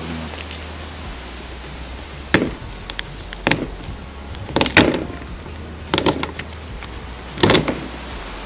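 Kitchen knife chopping through a raw spiny lobster onto a cutting board: five sharp chops, a little over a second apart, some of them doubled.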